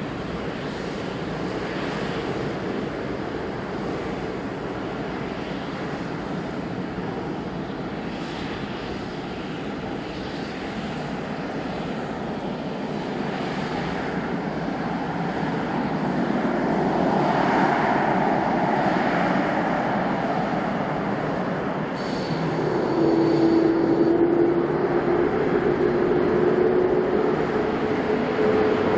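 Jet engines of a Boeing 787-8 running as it taxis onto the runway: a steady jet noise that grows louder about halfway through. Some seven seconds before the end a whine comes in and slowly rises in pitch as the engines spool up for the takeoff.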